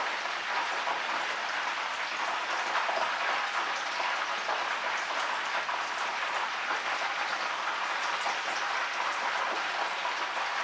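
Chicken pieces frying in hot oil in a pan: a steady sizzle with fine crackling.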